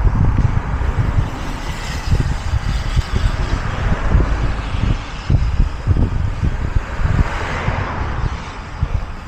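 Wind buffeting the microphone in irregular low gusts, with a steady rushing hiss over it.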